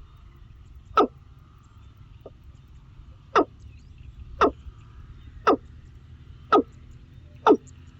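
A bird calling: short, sharp notes that sweep quickly down in pitch, one about a second in and then a run of five at roughly one per second.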